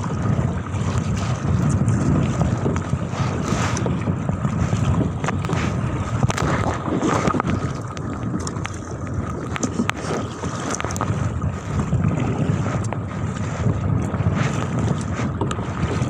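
Strong wind buffeting the microphone, with choppy water slapping and splashing against an inflatable kayak as it is paddled through the waves.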